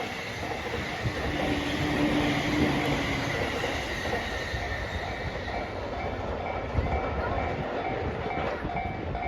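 Container wagons of a JR Freight train behind an EF210 electric locomotive rolling past: a steady rumble and clatter of wheels on rail. Over the last few seconds a level-crossing warning bell sounds in evenly repeated tones.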